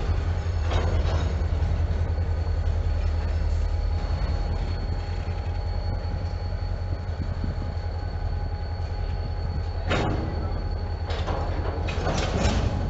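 An NECR diesel locomotive's engine rumbles steadily as it moves slowly coupled to a flatcar, with a faint steady high whine over it. A sharp clank comes about ten seconds in, and a few more follow near the end.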